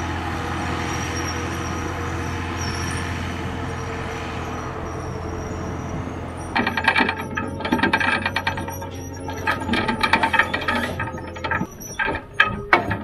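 Rottne F13-C forwarder's diesel engine running steadily as the loaded machine drives. From about halfway, dense irregular metallic clanking and rattling joins it as it travels. Near the end the steady engine sound drops away and the clatter goes on.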